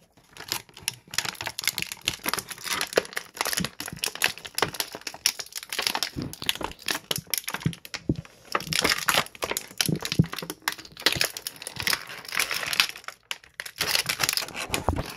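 Toy packaging crinkling and crackling as it is handled and pulled apart while an action figure is unboxed: dense, continuous rustling with brief lulls about 8 and 13 seconds in.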